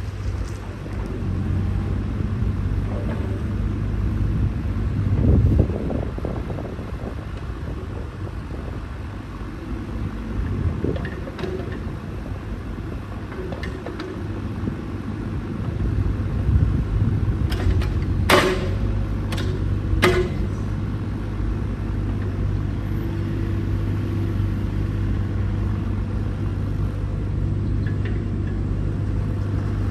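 Diesel engine of a 2017 JCB 8035ZTS mini hydraulic excavator running steadily, with a few sharp knocks about two-thirds of the way through.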